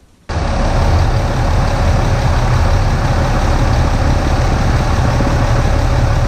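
6.7 L Cummins inline-six turbo diesel in a Ram pickup idling steadily. It comes in abruptly a moment in, with no cranking heard.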